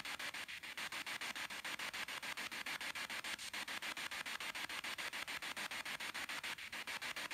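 Spirit box sweeping through radio stations: a steady hiss of static chopped about seven or eight times a second, with no voice coming through.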